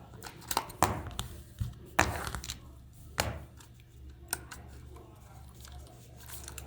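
A handful of sharp clicks and knocks, spaced irregularly, with the two strongest about two and three seconds in, over a faint steady low hum: small parts or tools being handled during a toy repair.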